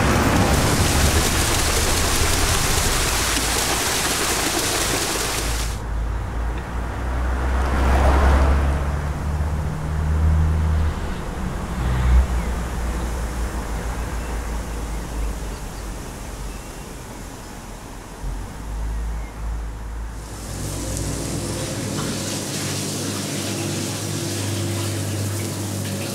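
A passing electric train and running water in a small canal, then a low rumble for most of the middle, then a steady machine hum with ambient noise in a restaurant kitchen.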